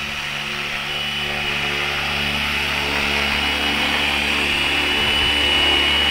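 Electric RC helicopter on Flywing FW450 V3 mechanics flying and hovering: a steady high motor whine over rotor noise, growing gradually louder as it comes in low.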